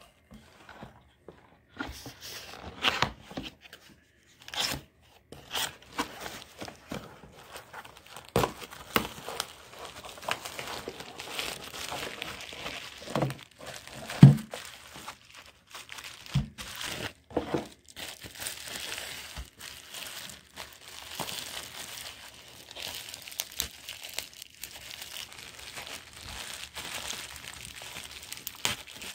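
Cardboard box being opened and a multimeter in plastic bubble wrap pulled out and handled: steady crinkling and rustling of the wrap, with scattered knocks of the box and meter, the loudest about fourteen seconds in.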